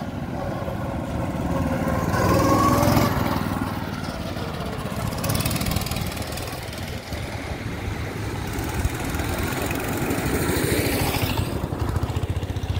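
Go-karts' small engines running as they lap the track, getting louder as a kart passes close about two seconds in and again near the end, the engine note rising and falling as it goes by.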